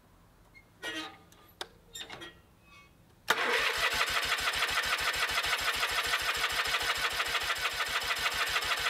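Electric starter cranking a Kohler MV18S 18 hp twin-cylinder garden tractor engine. The cranking starts suddenly about three seconds in and keeps an even beat of several strokes a second without the engine catching.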